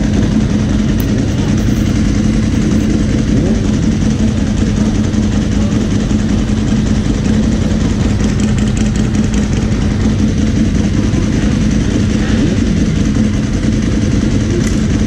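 A Ducati 1098's L-twin engine with a modified exhaust, idling steadily, with other motorcycles idling around it.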